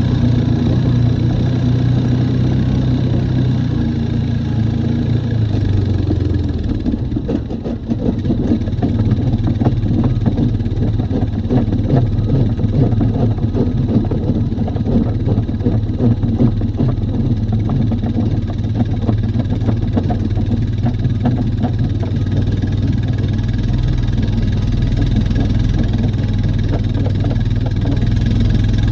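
Honda Rubicon 520 ATV's single-cylinder engine running steadily. About seven seconds in it dips briefly, then carries on with a rough, rapid clatter, in a machine whose owner reports a grinding noise when driving.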